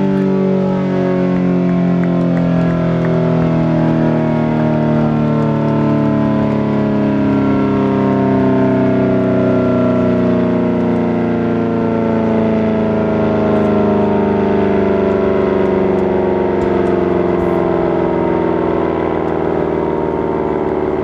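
American Signal Allertor 125 outdoor warning siren winding down, its tone falling slowly and steadily in pitch throughout.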